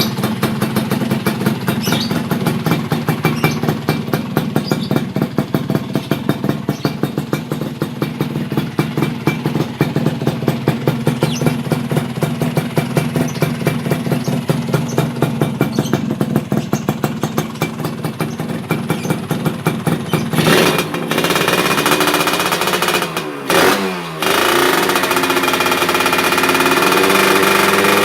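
Yamaha Touch 125 two-stroke motorcycle engine idling with a rapid pulsing beat, then revved up about 20 seconds in: the pitch climbs, drops back briefly, then is held high and loud near the end.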